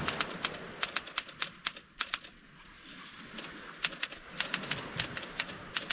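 Underwood manual typewriter being typed on: quick runs of sharp key clacks, with a pause of about a second and a half midway.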